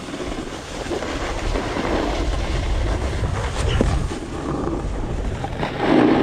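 Skis or a board sliding fast over packed snow: a steady scraping rumble, with wind buffeting the microphone.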